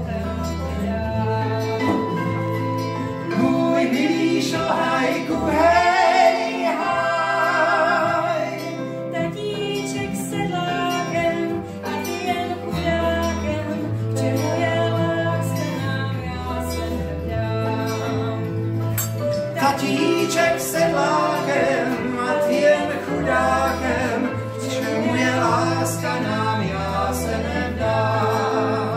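A man and a woman singing a song together to a live acoustic guitar accompaniment, the guitar played in steady strokes under the vocal melody.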